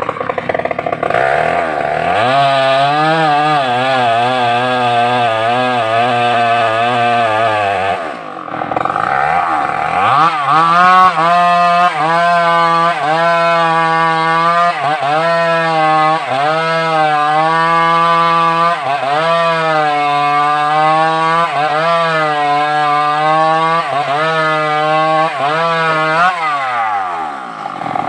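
Stihl MS381 two-stroke chainsaw revved to full throttle about two seconds in, dropping off briefly around eight seconds. It then runs at full throttle again, its pitch dipping and recovering about once a second as under load in a cut, before falling back toward idle near the end.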